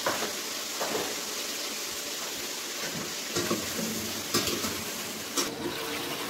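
Mixed vegetables sizzling steadily in a steel kadhai as they fry. From about three seconds in, a spatula stirs them, with several knocks and scrapes against the pan.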